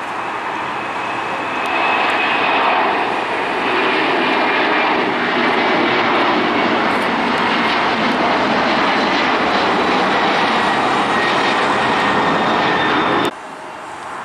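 Boeing 767-300 freighter's twin jet engines at takeoff power as it lifts off and climbs out: a loud, steady rush of jet noise with faint high whines, swelling about a second and a half in. It cuts off suddenly a second before the end, leaving quieter distant airport noise.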